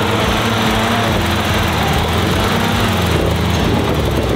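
Old army Jeep's engine running steadily under load as the Jeep climbs a rocky ledge off-road.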